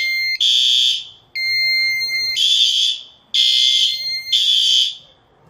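Fire alarm horns sounding in buzzy blasts about once a second, with a steady electronic tone between some of the blasts. They are running on battery backup with the mains power cut, and the sounding stops about five seconds in.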